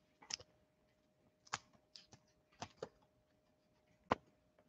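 Quiet, scattered clicks and taps of trading cards being handled and shuffled through on a table, about seven light ticks spread unevenly.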